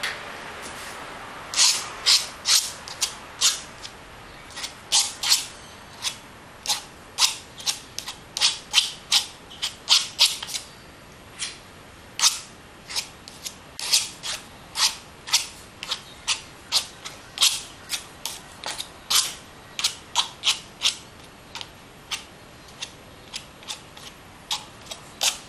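Palette knife scraping and dabbing acrylic paint onto a taped-down painting surface in quick, short strokes, roughly two a second and unevenly spaced.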